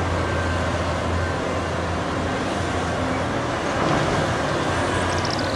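Steady rush of running water with a low hum underneath, while a toy excavator is rinsed. It starts and cuts off sharply.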